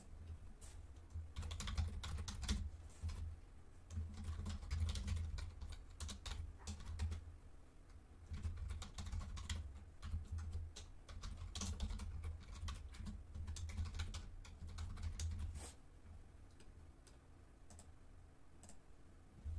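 Typing on a computer keyboard: quick, irregular keystrokes while a software form is filled in. The typing thins out to a few scattered clicks about sixteen seconds in.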